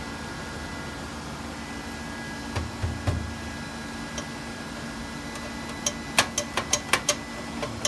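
Hands handling the metal terminal cover on a UPS extended battery module: a couple of low knocks about three seconds in, then a quick run of about seven sharp metallic clicks near the end. Under it runs a steady machine hum with a fixed tone.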